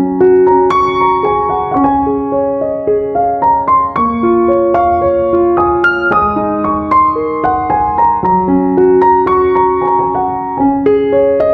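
Background piano music: a melody of single notes following one another several times a second.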